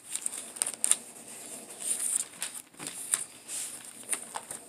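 Thin Bible pages being turned and flipped: a run of crisp paper swishes and small clicks as the pages are leafed through.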